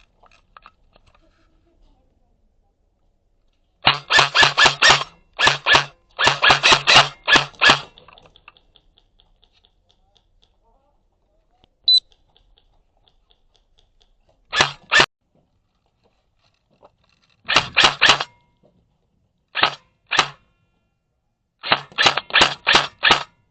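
Airsoft gun firing short rapid-fire bursts, several strings of fast sharp clicks separated by quiet pauses, the longest run about four seconds in and another near the end.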